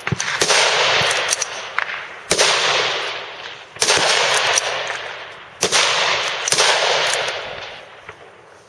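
Rifle shots from several service-style rifles, about six sharp cracks at irregular spacing, each followed by a long rolling echo that dies away over a second or two.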